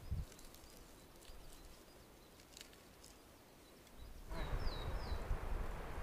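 Quiet forest with faint high ticks, then a small bird gives three short falling chirps about four seconds in. At the same moment footsteps and rustling through the forest floor start up and continue.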